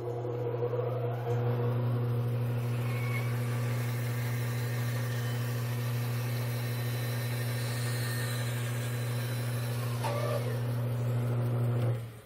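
Bandsaw running with its motor hum steady, the blade cutting through a glued-up wooden block to slice off the lid, with a steady rasp of the cut over the hum. The sound gets a little louder a little over a second in and stops abruptly near the end.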